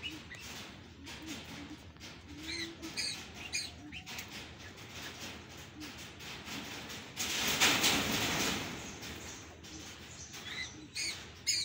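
A pheasant flapping its wings in a burst of about a second and a half, a little over seven seconds in. Short high bird chirps come a few times before and after it.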